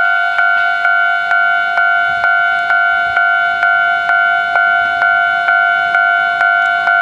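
Japanese railway level-crossing warning bell ringing in a steady, even clang about twice a second.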